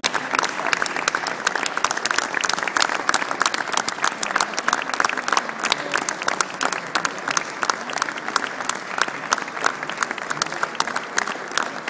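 A large audience giving a standing ovation: many people clapping in dense, sustained applause, with sharp claps from hands close by. It begins abruptly.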